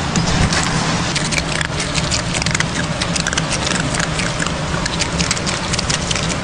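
A steady low hum with many small clicks and crackles scattered over it.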